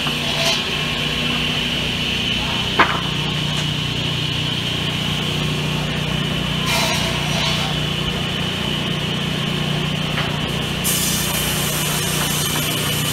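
Sawmill machinery running with a steady hum, with one sharp knock of wooden boards being handled about three seconds in.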